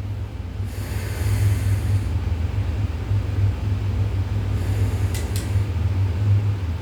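Steady low rumble of room or microphone noise. Over it come two soft sniffs as a glass of bourbon is nosed, one about a second in and one near five seconds, with a couple of light clicks around the second.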